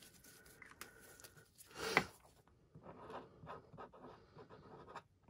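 Felt-tip permanent marker writing on a plastic container lid: a run of short, faint scratching strokes from a little under three seconds in, after a brief louder sound near two seconds in.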